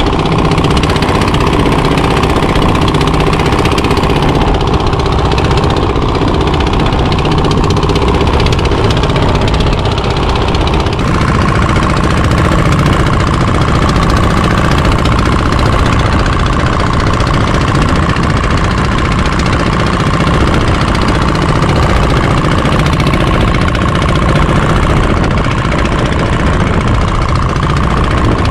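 Fishing boat's diesel engine running steadily under way while trolling. A steady whine in the middle of the sound shifts slightly about eleven seconds in.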